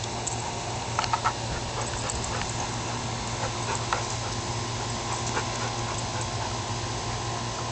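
A corgi and a golden retriever at play, with a quick run of three short dog barks about a second in and a few fainter sounds after, over a steady low hum.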